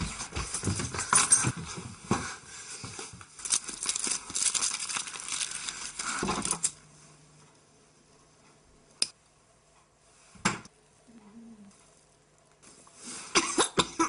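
Crackling, rustling noise for about the first six seconds, then a quiet stretch broken by two sharp clicks of a cigarette lighter, and a woman starts coughing near the end.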